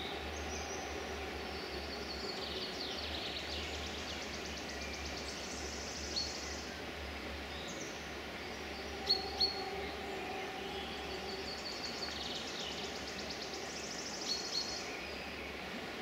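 Songbirds singing over a steady outdoor background hiss and faint low hum: two long song phrases with rapid trills, one early and one near the end, and two sharp chirps a little past the middle.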